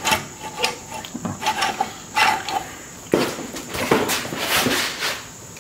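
Cylinder head of a Jaguar 2.4 litre straight-six being rocked and lifted off its rusted block by hand: irregular metal clunks, knocks and scrapes as it works loose.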